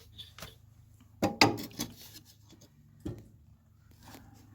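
Scattered knocks and clatter of things being moved about in a workshop, the loudest a little over a second in and another about three seconds in, over a low steady hum.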